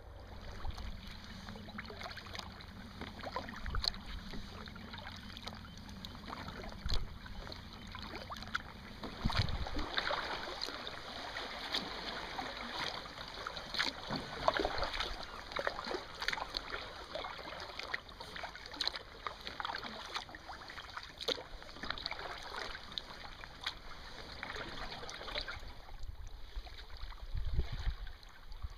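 Kayak paddling on calm sea: the paddle blades dipping, with small irregular splashes and water dripping off the blades. A low rumble sits under it for the first ten seconds or so.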